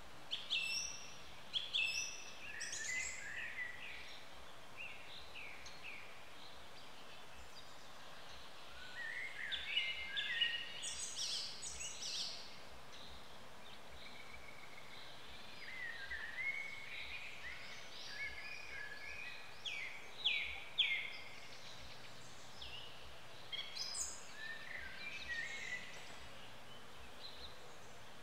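Songbirds chirping and singing in woodland: several bouts of short, quick twittering phrases, with quieter stretches between them, over a steady faint background hiss.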